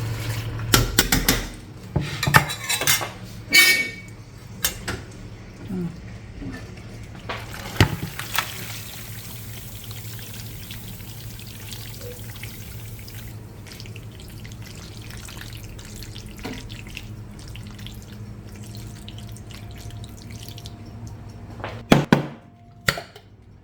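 Kitchen work sounds: a utensil clinking and knocking against a pan and dishes, and a tap running for several seconds near the middle.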